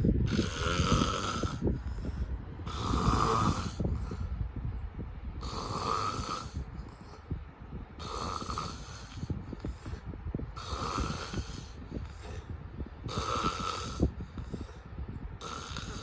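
Snoring: a noisy, rasping breath repeated about every two and a half seconds, seven in all, each followed by a fainter, shorter breath, over a steady low rumble.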